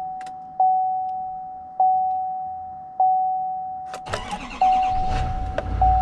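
Pickup truck's dashboard warning chime, a single tone repeating about once a second. About four seconds in, a click and the GMC Sierra 2500HD's engine cranks and starts, settling into a low rumble while the chime carries on.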